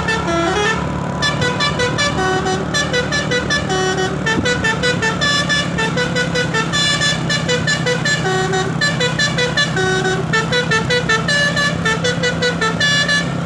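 Telolet Basuri V3 musical truck horn playing a fast tune of short, stepped notes in repeated phrases, over a steady low drone.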